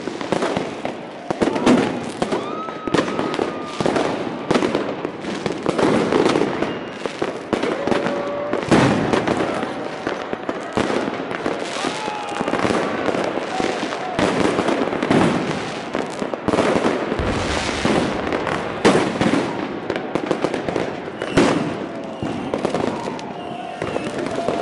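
A dense, unbroken barrage of firecrackers and fireworks: rapid bangs and crackling, with louder blasts every second or two.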